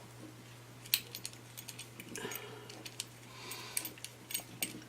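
Irregular small clicks, taps and light scrapes of small metal parts being handled and fitted back onto a multi-turn potentiometer, over a steady low hum.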